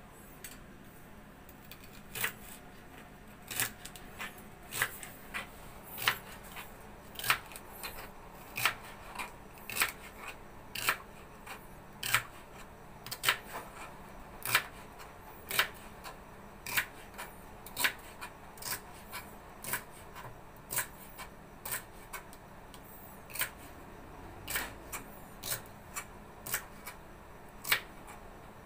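Kitchen knife chopping celery stalks on a plastic cutting board: crisp, regular chops, a little under two a second, beginning about two seconds in.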